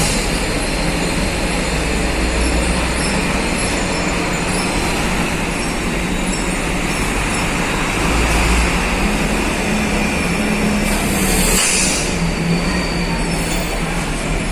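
Loud, steady mechanical rumble and drone of vehicles and machinery in a ferry's steel car deck, with a short hiss about eleven seconds in.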